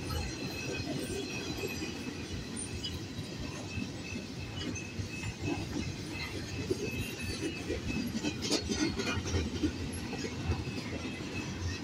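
Double-stack intermodal freight train's well cars rolling past: a steady rumble of steel wheels on rail, with a faint thin high wheel squeal. There is a brief burst of clatter about eight and a half seconds in.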